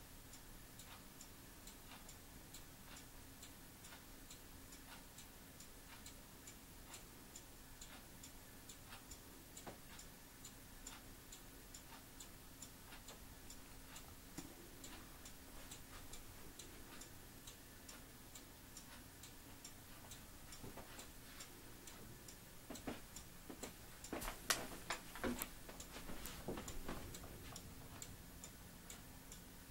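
Faint, steady ticking, about two ticks a second, over a low steady hum. A cluster of louder knocks comes about 23 to 27 seconds in.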